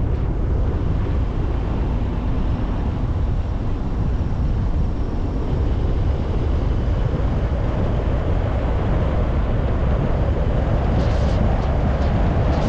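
A car driving on a rural road: a steady low rumble of engine and tyres, with a few brief ticks near the end.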